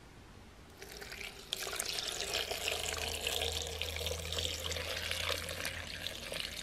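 Water poured from a bottle into a glass blender jar onto chopped vegetables and herbs, starting about a second in and running steadily.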